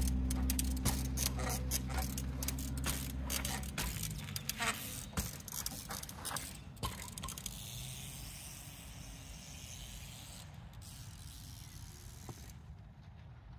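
Trials bicycle's freehub ratchet clicking in quick, irregular runs along with tyre knocks as the bike hops and rolls away, the clicking fading as it goes. A low steady hum sits underneath for the first four seconds.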